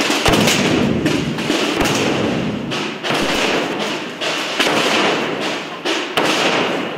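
Massed processional drums, snare drums and bass drums, beating together in a dense, continuous clatter with heavy thuds. The sound dips briefly near the end.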